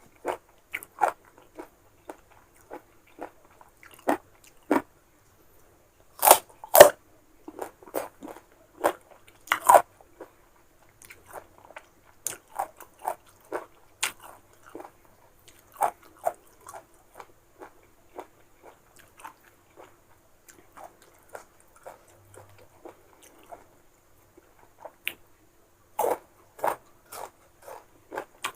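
Crunchy bites and chewing of raw, unripe green mango close to the microphone: irregular crisp crunches, loudest in a few bites about six seconds in and again near the end.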